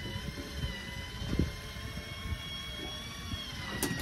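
A steady engine drone whose pitch wavers slightly, over a low rumble, with a few sharp clicks near the end.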